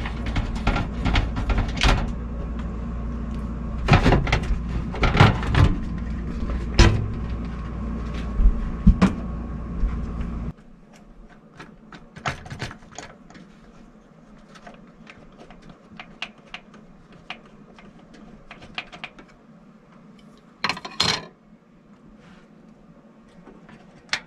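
Clicks and knocks of hands handling a desktop computer case and the CPU cooler mounting bracket at the back of the motherboard tray, over a steady low hum that cuts off suddenly about ten seconds in.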